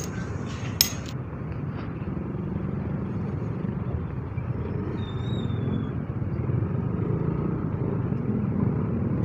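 Yamaha Aerox 155 scooter's single-cylinder engine running at low speed, heard from onboard as a steady low rumble with road noise. A sharp click comes just under a second in, and a faint brief high whistle around five seconds in.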